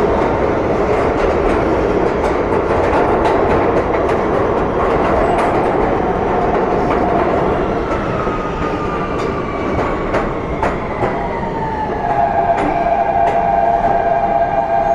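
Kawasaki R160B subway car with Siemens propulsion running on the rails, wheels clicking over rail joints under a steady rumble. Partway through, the propulsion whine glides down in pitch and the clicks come farther apart as the train slows.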